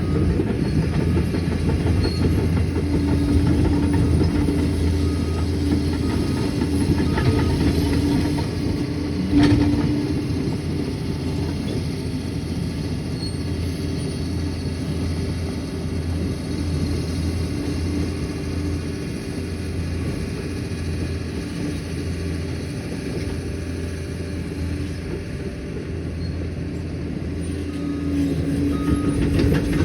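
Liebherr PR 746 crawler dozer's diesel engine running steadily under work, with the clatter of its steel tracks. A single sharp clank comes about nine and a half seconds in, and a few short high beeps sound in the first third and again near the end.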